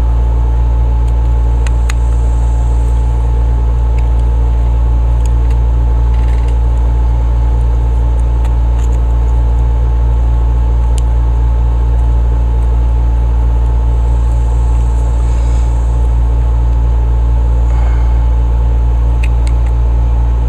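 Steady low mechanical hum at an even level, with a few faint clicks of small metal parts as the carburetor's idle mixture screw is worked out.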